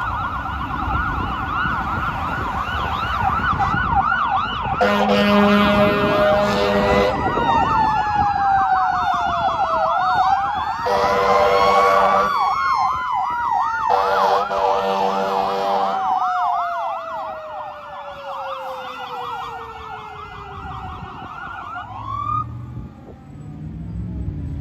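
Fire apparatus responding under sirens: an electronic siren yelping rapidly, with a second siren rising in pitch and then slowly winding down. Three long blasts of an air horn cut in over them, and the sirens stop near the end.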